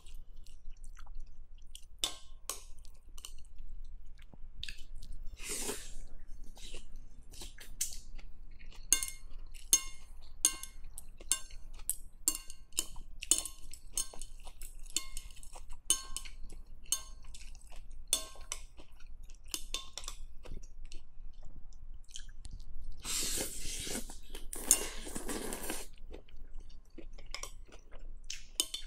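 Close-miked eating of pho: chewing and mouth clicks, with metal chopsticks clinking against a glass bowl. There is a short slurp about six seconds in and a long, loud slurp of pho noodles near the end.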